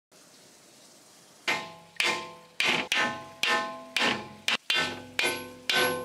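Hammer blows on a rusted, stuck steel gate, about two a second starting about a second and a half in, each with a ringing metal clang that dies away. The blows are meant to knock the rust-seized gate loose.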